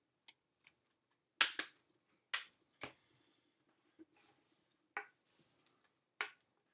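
Baseball trading cards being flipped through by hand: a series of sharp card snaps at uneven intervals, the loudest about one and a half to three seconds in, with soft sliding rustles of card against card between them.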